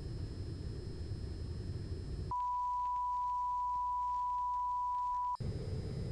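A steady, high pure test tone of the kind that goes with colour bars sounds for about three seconds, cutting in abruptly about two seconds in and stopping just as abruptly. Before and after it there is a low, noisy background hiss and rumble.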